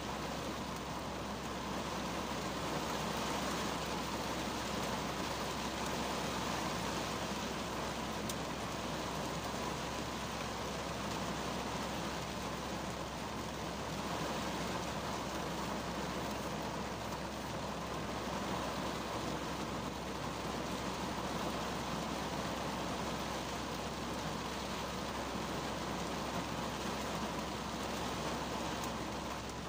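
Rain falling on the roof and windshield of a 2010 Kia Cerato, heard from inside the car's cabin as a steady, even hiss of drops.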